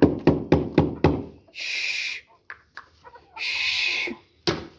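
Chickens in a yard: a quick run of sharp taps, about four a second, stops about a second in, then two short harsh squawks from the hens.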